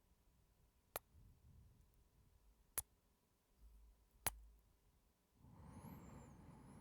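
Three sharp, close-miked kisses (lip smacks), about a second and a half apart, then a soft breath near the end.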